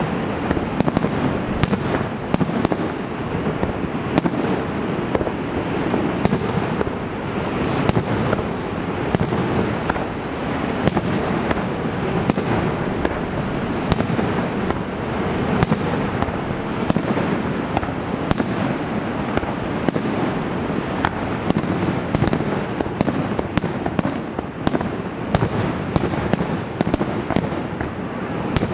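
Fireworks display: shells bursting and crackling in a rapid, continuous run of sharp bangs and pops over a dense, steady background rumble.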